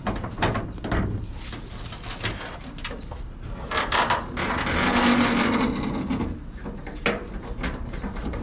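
The sheet-metal hood of a 1955 Mack B42 truck being unlatched and lifted open: clicks and knocks from the latch and panel, then a long scrape with a brief low creak about halfway through as the hood swings up, and a few more knocks near the end.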